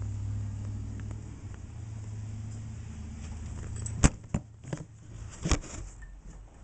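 A low steady hum for about the first four seconds, then a string of sharp knocks and rustles from a handheld camera being picked up and moved, the loudest knock about four seconds in.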